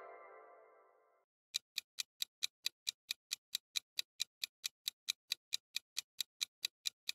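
The ringing tail of a chime sound effect fading away in the first second, then, from about a second and a half in, a clock-style ticking timer sound effect, even ticks about four or five a second, counting the thinking time while a quiz question is on screen.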